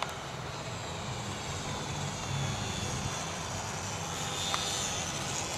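Electric motor and propeller of a small two-channel RC model airplane whining in flight overhead, the high whine drifting slowly in pitch, over a low rumble.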